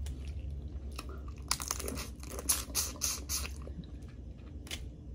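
Boiled crawfish being peeled by hand and eaten: a quick run of crisp shell cracks in the middle, one more crack near the end, with chewing.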